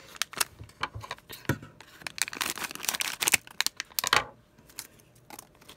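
Foil blind-bag wrapper crinkling and crackling in the hands, a rapid run of small sharp crackles that thins out about four seconds in.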